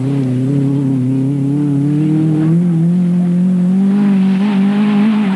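Rally car engine running at high revs on a gravel special stage. Its pitch rises about halfway through and then holds steady. A rushing noise joins in about four seconds in.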